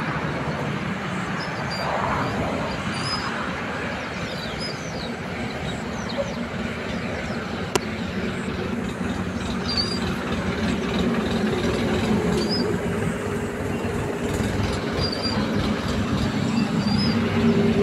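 A steady mechanical hum over a low rumble, growing stronger through the second half, with a single sharp click about halfway through.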